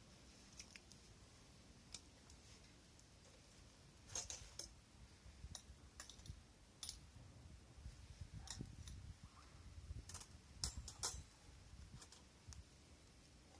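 Scattered light clicks and small knocks at an irregular pace, the loudest a few around four seconds in and a quick cluster near eleven seconds in.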